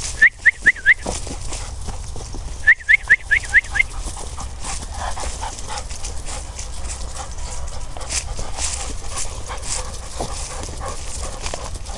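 Giant schnauzer puppy giving two quick runs of short, high yelps, about four and then about six, within the first few seconds. Footsteps and rustling in fallen leaves run under them and carry on after.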